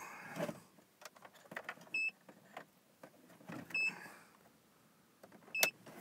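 Plastic multi-plug connector being handled and pushed into the back of a car instrument cluster, with scattered clicks and knocks. Three short, high electronic beeps come at even intervals, the last with a sharp click near the end.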